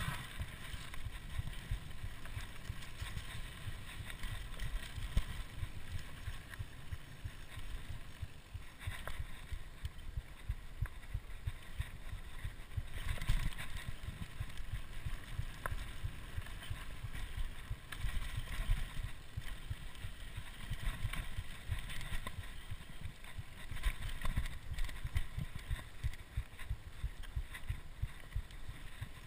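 Mountain bike riding down a dirt singletrack, heard from a bike-borne point-of-view camera: wind buffeting the microphone and a constant rumble of tyres and frame over rough ground, broken by sharp knocks and rattles over bumps.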